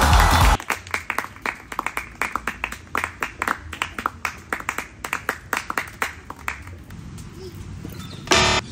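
A small group of people clapping by hand, irregular and fairly quick, fading off after about six seconds. A loud, pitched 'winner' jingle sound effect ends about half a second in, and a short pitched sound-effect burst comes near the end.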